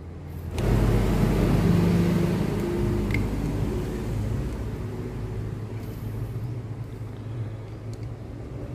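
A motor vehicle engine running, coming in suddenly about half a second in as a low rumble and slowly fading over the following seconds.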